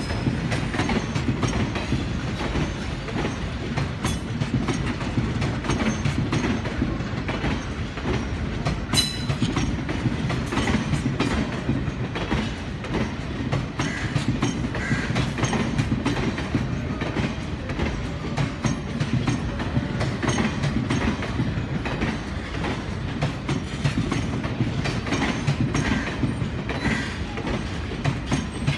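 Passenger coaches of an express train rolling past close by: a steady rumble of steel wheels on the rails with a fast clickety-clack over the rail joints, and a couple of sharper clicks about 4 and 9 seconds in.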